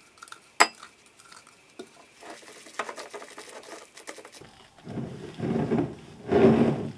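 A spatula folding beaten egg whites into a moist bread-dumpling mixture in a glass bowl. There is one sharp clink against the glass about half a second in, then soft scraping, and the mixing sounds grow louder and wetter over the last couple of seconds.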